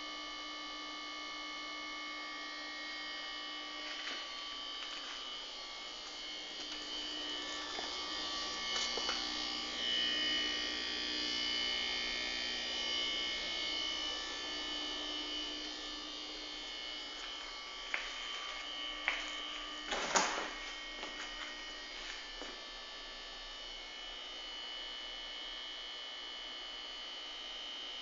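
LG GW-B499SQFZ refrigerator compressor running with a steady, high-pitched hum made of several held tones; the owner finds it very loud, measuring 59 dB beside the compressor against a rated 37 dB. A few short clicks fall about two-thirds of the way in, the loudest around 20 seconds.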